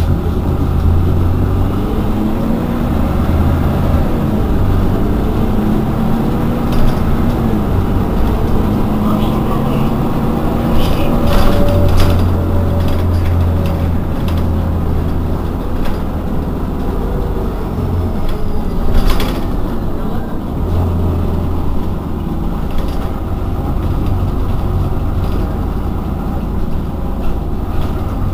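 Irisbus Citelis 12 city bus standing with its engine idling: a steady low drone whose pitch slowly rises and falls at times, with a few short clicks.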